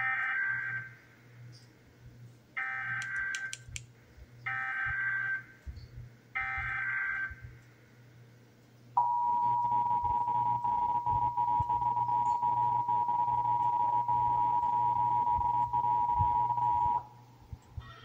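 Emergency Alert System tones played through a TV speaker: four buzzy bursts of SAME header data, each about a second long. About nine seconds in, the steady two-tone EAS attention signal starts and holds for about eight seconds before cutting off. These tones mark the start of an EAS Required Monthly Test.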